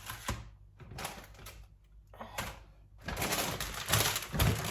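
Shopping bags and packaging being handled: scattered clicks and taps, then denser rustling from about three seconds in.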